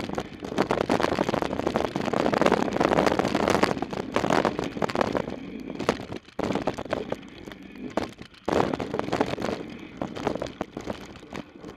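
Mountain bike riding fast down a dirt singletrack, heard from on the bike: rushing wind over the microphone with tyres on dirt and a constant clatter and rattle from the bike over bumps. It eases off a little past the halfway point, then picks up again suddenly about eight and a half seconds in.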